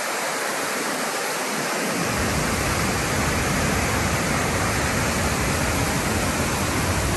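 Reekie Linn waterfall: a steady rush of falling water, with a deeper rumble filling in about two seconds in.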